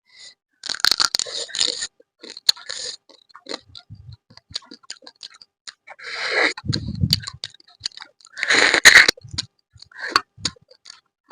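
Close-miked eating of crab curry: chewing in irregular bursts, with many sharp clicks and pauses between. The loudest bursts come about a second in, around six to seven seconds in, and near nine seconds.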